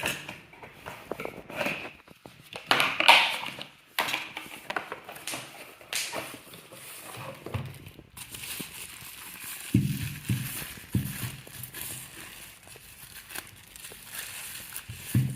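Packaging being handled while a product is unboxed: crinkling and rustling with many short clicks and knocks. In the second half there is a steadier hiss with a few dull low thumps.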